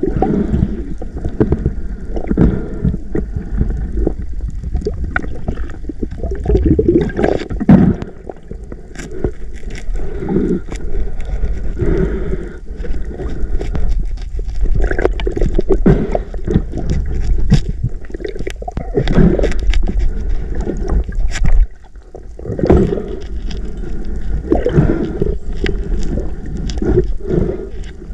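Muffled underwater noise picked up by a camera housing: water churning, with irregular knocks and scrapes as a diver grips and handles a speared king mackerel.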